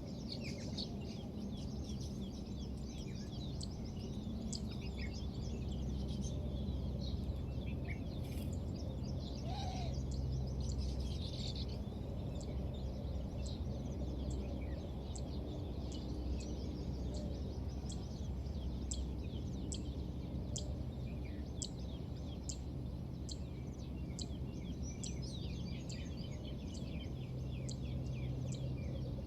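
Small birds chirping, many short high chirps through the whole stretch, over a steady low rumble of background noise.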